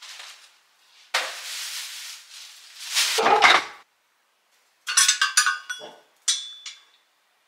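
Plastic shopping bag rustling and crinkling, heaviest around the middle, then a run of sharp glass-and-metal clinks with short ringing tones and one last ringing clink near the end.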